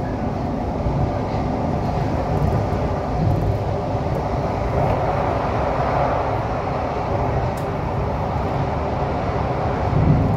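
CT251 metro train running through a tunnel, heard from inside the front car: a steady running noise of wheels on rail and traction, swelling slightly about halfway.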